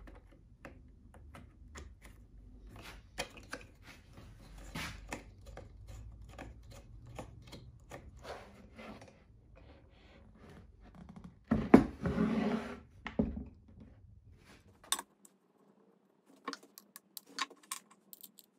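Handling noise from a Trend T14 router and its plug-in switch connector: a string of light plastic clicks and knocks as the plug is fitted and the router is turned over, with one louder clattering knock lasting about a second and a half two-thirds of the way through. The router motor is not running.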